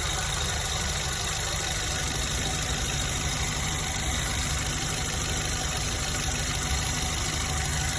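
Nissan Rogue's 2.5-litre four-cylinder engine idling steadily. It runs with a misfire on cylinder 4, which gets no spark because the engine computer's coil driver for that cylinder has failed.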